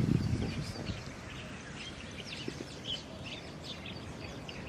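Wild birds chirping and calling, many short high chirps overlapping one another, over a low steady background rumble.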